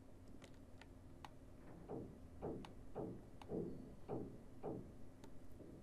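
Faint clicking of a computer mouse as the file list is scrolled: a few sharp ticks, then a run of soft ticks about twice a second from about two seconds in.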